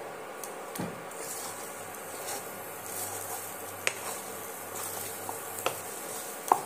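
Wooden spatula stirring and scraping thick ground red-lentil paste in a non-stick kadai, with three sharp knocks of the spatula against the pan in the second half, the last the loudest.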